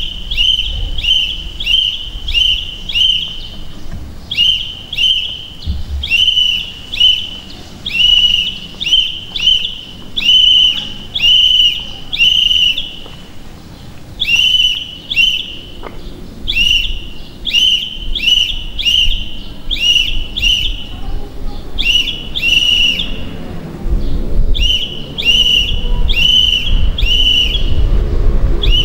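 Pea whistle blown in Morse code: many short and longer trilling blasts in groups with brief pauses between, spelling out a message letter by letter.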